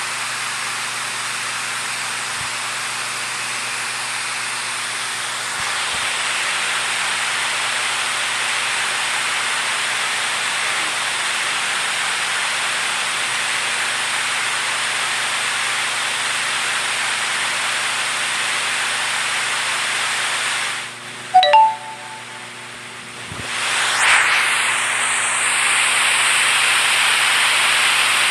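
Steady rush of flowing water that cuts off about 21 seconds in. A brief pitched chirp follows, and then a second, slightly louder stretch of rushing water starts.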